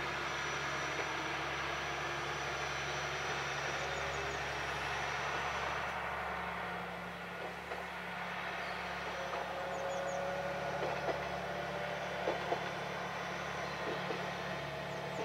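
Diesel railcar heard from a distance: a steady engine drone with a faint tone that slowly rises in pitch, under an even hiss.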